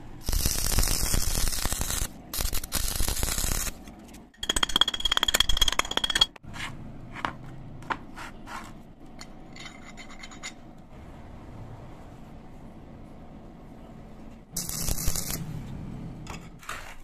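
Several bursts of harsh, crackling noise from arc welding steel parts of a homemade flat bar bender, the pin and handle being welded on. Three long bursts come in the first six seconds and a shorter one near the end, with light metal clicks between.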